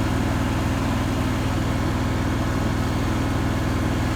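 Miller Trailblazer 325 welder-generator's engine running steadily, supplying power to air compressors that are running to fill their tanks.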